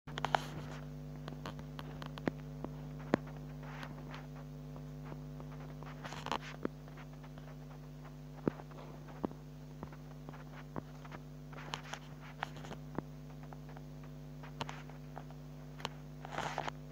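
A fingertip tapping and sliding on a phone touchscreen, heard as scattered faint clicks and a few short scratchy rubs, over a steady low electrical hum.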